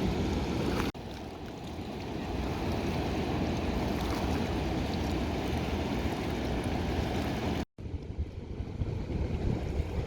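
Rough sea waves surging and washing on the shore: a steady, noisy rush weighted to the low end. It breaks off abruptly twice, about a second in and near the end.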